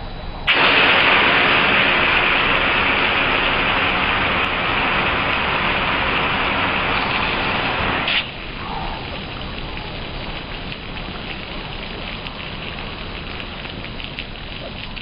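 Garden hose spray nozzle spraying water, a loud steady hiss that cuts off sharply about eight seconds in, leaving a softer spatter of water to the end.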